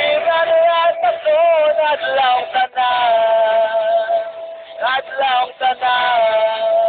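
A voice singing a slow melody in long held notes, with a passage where the pitch wavers up and down.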